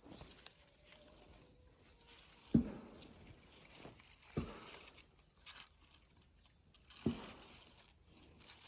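Faint rustling and crinkling, with three soft thumps spread through.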